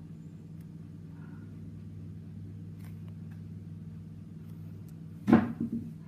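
A single sharp metallic clack from a Zippo lighter being handled, about five seconds in, followed by a couple of smaller knocks. A steady low hum runs underneath.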